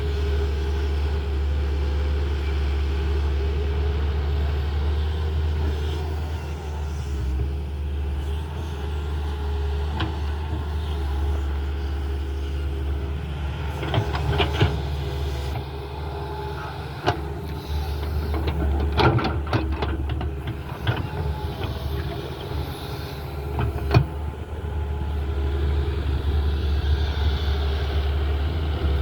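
Tata Hitachi excavator's diesel engine running steadily under work, with a few sharp metallic knocks and clanks from the machine in the middle stretch.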